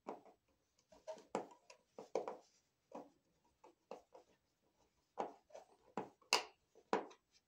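Irregular light clicks and knocks, a dozen or so, of hands handling an electrical receptacle, screws and tools at a wall box.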